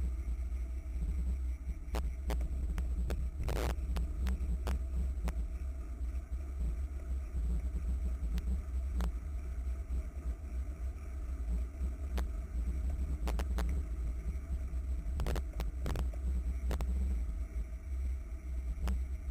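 Steady low wind and road rumble picked up by a camera mounted on a racing bicycle moving at speed, with scattered sharp clicks and a short rattle about three and a half seconds in.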